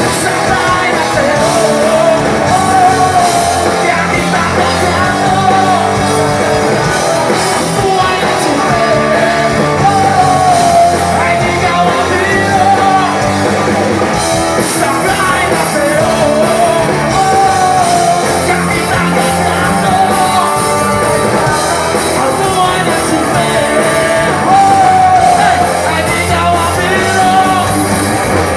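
A live rock band playing a song, with a lead singer carrying the melody over the band.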